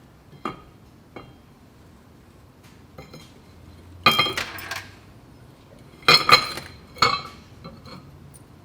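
Steel clutch parts clinking and clattering against each other as a twin-disc clutch assembly is put back together by hand: a few light ticks, then three louder bouts of metal-on-metal clatter in the second half.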